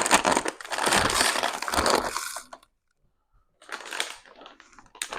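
Plastic snack packaging crinkling and rustling as items are packed into a box: a long, dense rustle for about two and a half seconds, a short pause, then shorter crinkles and a few sharp clicks.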